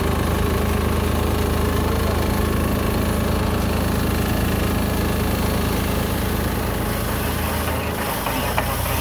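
Small Yanmar crawler combine's engine running steadily while it threshes hand-fed rice sheaves. The engine note changes slightly near the end.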